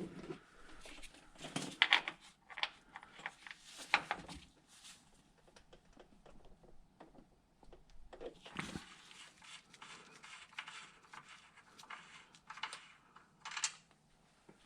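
Scattered light clicks, knocks and rustles of objects being handled, with a somewhat louder knock a little past the middle.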